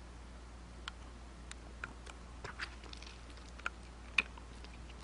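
Soft, irregular wet mouth clicks and lip smacks from a mouth held close to the microphone, scattered a few at a time, over a steady low hum.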